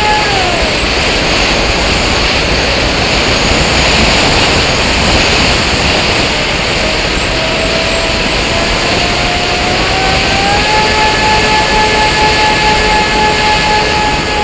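Model airplane's motor and propeller, heard from on board: the whine drops away as the throttle is cut, leaving a loud rush of air over the plane. About seven seconds in the motor comes back and its pitch climbs for a few seconds as it spools up, then holds steady.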